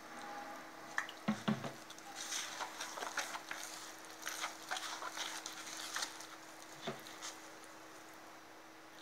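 A hand squishing and kneading wet gram-flour and rice-flour batter in a plastic bowl as water is worked in: irregular soft squelches and pats, over a faint steady hum.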